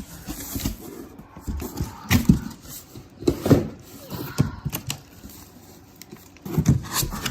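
Coilover parts being unpacked from a cardboard box: irregular knocks and clunks with packaging rustling, the loudest about two, three and a half and nearly seven seconds in.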